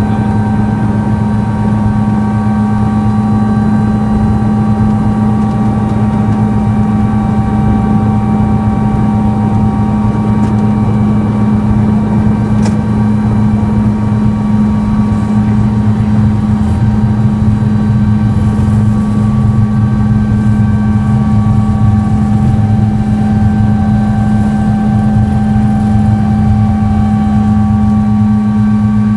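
Sikorsky S-76 helicopter's twin turbine engines and rotors running, heard from inside the cockpit: a steady whine of several held tones over a low drone. The drone grows louder about halfway through as the helicopter lifts off.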